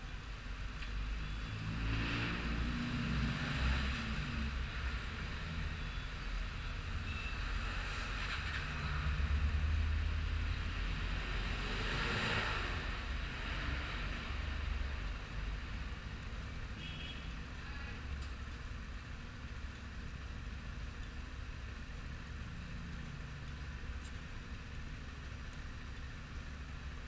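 Road vehicles passing by, several swells that rise and fade over a steady low rumble; the loudest passes about ten seconds in.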